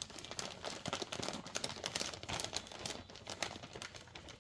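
Hands wiping down a plastic mushroom filter bag: irregular soft crinkling and rustling.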